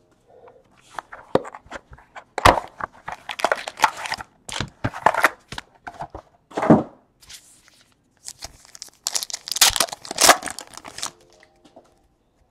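Trading card packaging being torn open and the wrappers crinkled by hand, in irregular rips and rustles with louder flurries about a third of the way in and again near the end.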